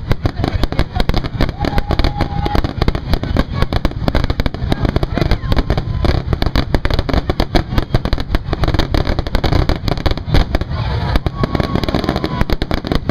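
Aerial fireworks shells bursting in a dense, continuous barrage, the booms overlapping one another with crackle and no pause between them.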